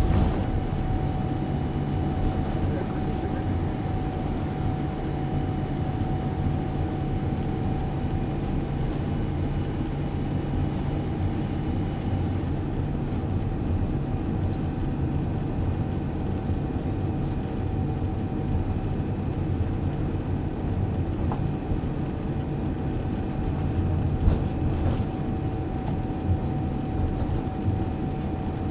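Cabin noise of a Boeing 787-9 taxiing after landing: a steady low rumble with a thin steady hum over it. A faint high whine stops a little under halfway through.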